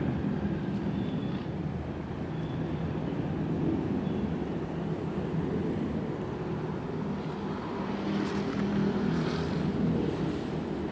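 Steady low drone of the Mega Regina ferry's engines while it manoeuvres to dock, with a swell of hissing noise about eight seconds in.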